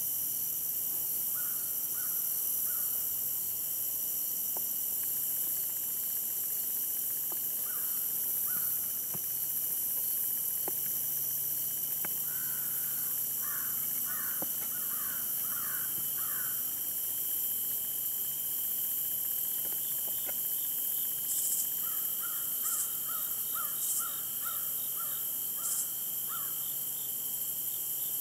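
Steady chorus of insects droning in several high, unbroken tones, with a bird calling in quick runs of short repeated notes, twice in longer runs about halfway through and near the end.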